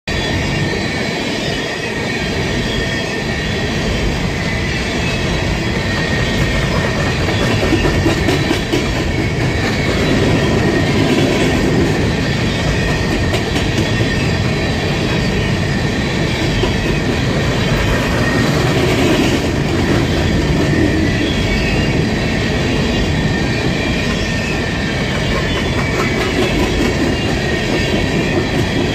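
Freight train of coal cars rolling steadily past at close range, with the dense noise of steel wheels on rail. A thin, steady wheel squeal rides over it.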